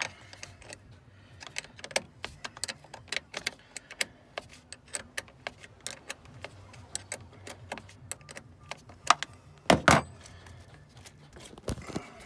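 Metal clicks and taps of a 10 mm spanner working the nut on a car battery's terminal clamp as the battery is disconnected, several light clicks a second with a louder clatter just before ten seconds in.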